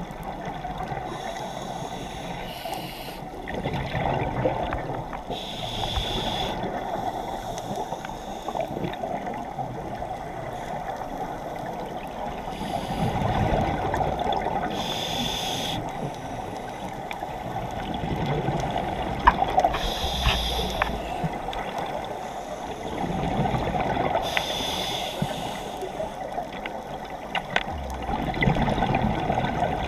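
Scuba diver breathing through a regulator underwater: a short hiss on each inhalation, then a rumbling gurgle of exhaled bubbles, breath after breath a few seconds apart.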